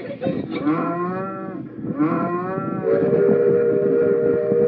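Two cow moos, each rising and then falling in pitch, followed about three seconds in by a steady horn blast that holds on.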